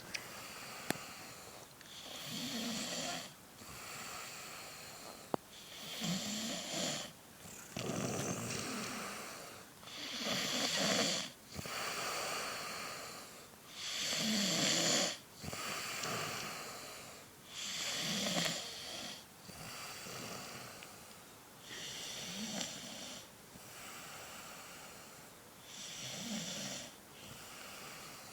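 A woman snoring in her sleep, with rasping breaths coming in a regular cycle every few seconds and a low rattle on many of them.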